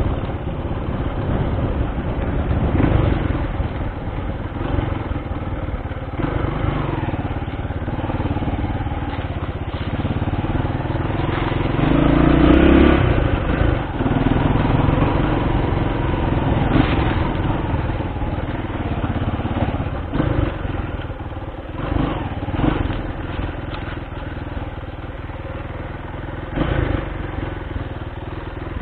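Honda XR200's single-cylinder four-stroke engine running under way on a test ride after a carburettor repair, its pitch rising and falling with the throttle and loudest about twelve seconds in. A few knocks come in the second half.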